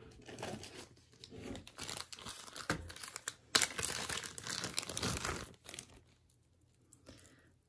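Packaging crinkling and tearing as an item is unwrapped by hand. It grows loudest from about halfway in and stops shortly before the end.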